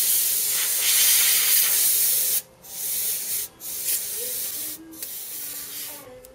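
Can of compressed air spraying in four hissing bursts: one long blast of about two and a half seconds, then three shorter ones of about a second each, the last fainter. It is blowing dust off a phone's LCD screen.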